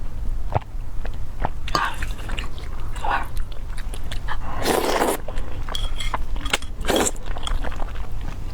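Close-miked eating sounds of a person chewing spicy fire noodles: many short wet clicks and smacks, with two longer, louder noisy sounds, one a little before the middle and one about two-thirds of the way through.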